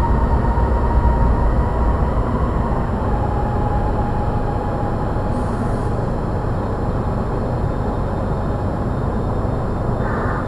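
Light rail train running, heard from inside the carriage: a low rumble with a steady motor whine that steps down in pitch about three seconds in as the train slows for a station.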